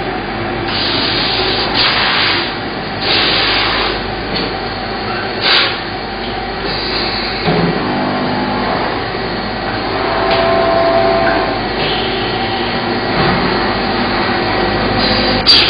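Workshop machinery running steadily, with several short hissing bursts in the first few seconds and a sharp click near the end.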